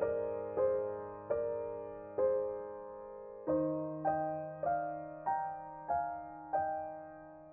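Background piano music: slow single notes struck about once or twice a second, each fading away, over sustained low notes. The bass and harmony shift to a new chord about halfway through.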